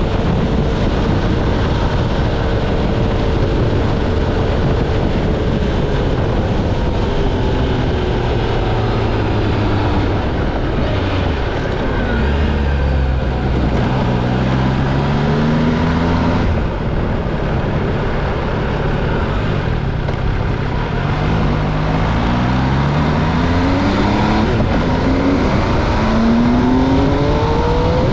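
MV Agusta Stradale 800's three-cylinder engine under way: its note falls for the first several seconds as the bike slows, then climbs again in repeated rises, each cut short by a gear change, over heavy wind rush.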